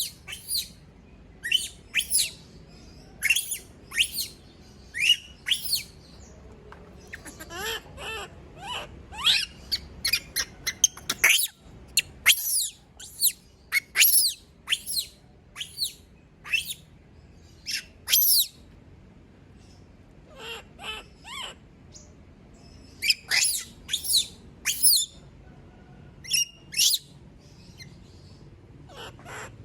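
A young pet monkey screaming when left alone: short, shrill, high-pitched cries, often falling in pitch, coming in quick runs one after another.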